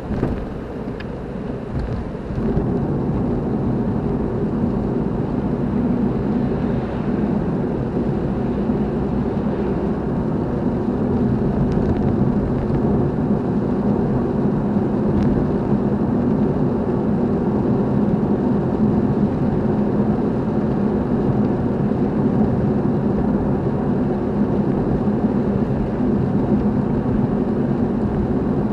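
A car driving: steady engine and road noise that gets louder about two seconds in.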